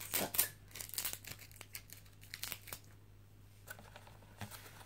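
Thin clear plastic tub crinkling and clicking as hands grip and shift it on paper towels: a run of short crackles that thins out after about three seconds, over a faint steady low hum.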